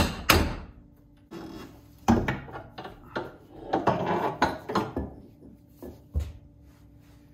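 Clacks, knocks and a rougher rattling stretch of hand work on a Nissan 350Z's rear axles as they are pulled out from under the car. The two sharpest clacks come right at the start.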